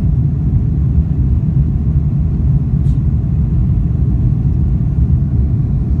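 Steady low rumble inside the cabin of a Boeing 747-400 climbing after takeoff: engine and airflow noise, heard from a window seat behind the wing.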